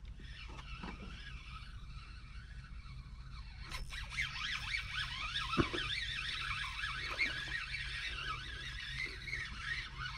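A spinning reel being cranked to play a hooked pike, with a sharp click about four seconds in followed by steady whirring from the reel, over a faint low hum.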